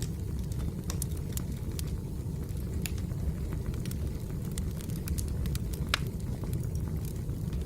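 Wood fire burning: a steady low rumble with scattered sharp crackles and pops of burning logs.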